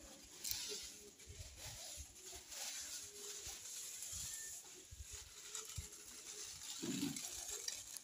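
Dry fallen leaves rustling and crackling as they are scooped up and handled, with scattered soft low bumps.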